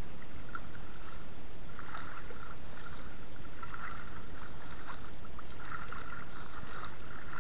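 Shallow river water sloshing and swishing around legs wading through it, a steady rushing noise with flickers of splashing.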